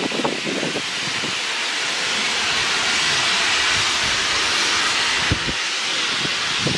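Steam escaping from the LNER A3 Pacific locomotive 60103 Flying Scotsman: a loud, steady hiss that swells toward the middle and eases slightly near the end.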